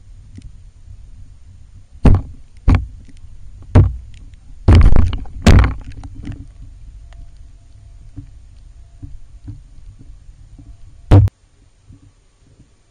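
Handling noise on a camera dipped in canal water: about six loud, irregular knocks and thumps against the camera over a low rumble, the last about eleven seconds in, after which it goes much quieter.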